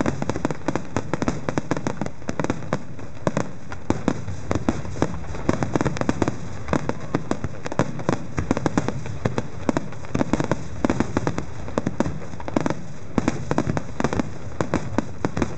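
Aerial fireworks bursting in rapid succession: a dense, continuous run of bangs and crackles, several a second.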